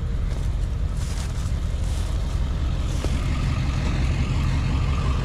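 Truck engine idling: a steady low rumble with an even pulse.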